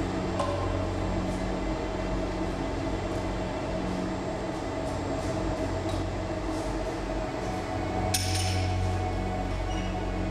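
Steady hum of glass-studio furnaces and kilns, with a few light clinks of glass and metal tools. A sharper clink comes about eight seconds in.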